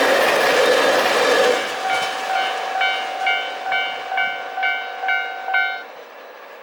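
KiHa 283 series diesel express train passing close by, its loud run of engine and wheel noise falling away about a second and a half in. A level-crossing alarm bell then rings on by itself, about two strikes a second, and cuts off suddenly about six seconds in as the crossing clears after the train.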